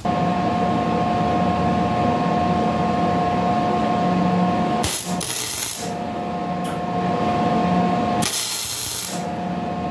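Wire-feed welder welding a steel bracket onto a tractor linkage bar: a steady crackling buzz from the arc, broken twice by short spells of hiss about five and eight and a half seconds in.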